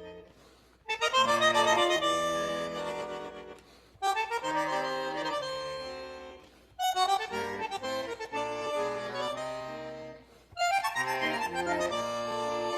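Instrumental background music: a melody played in four phrases, each swelling and fading before a short pause.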